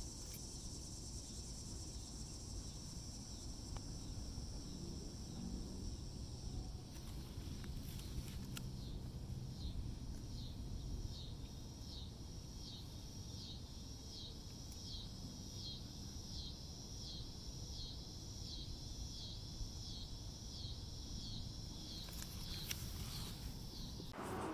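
Evening insects calling in the calm before a storm: a steady high trill, joined about eight seconds in by a high rhythmic call repeating about one and a half times a second. Under them is a low rumble of light wind, and right at the end a gust of wind sets in.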